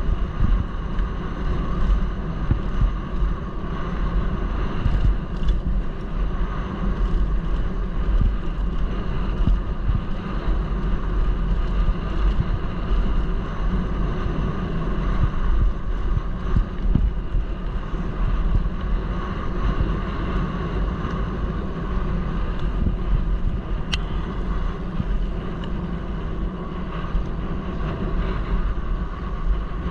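Wind buffeting the microphone and mountain bike tyres rolling over a gravel track on a descent, a steady rushing noise throughout. There is one sharp click late on.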